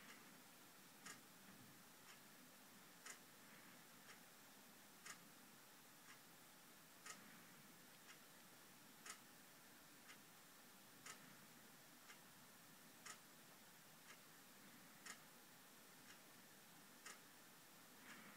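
Faint, even ticking like a clock, one tick a second with every other tick louder, over a low hiss.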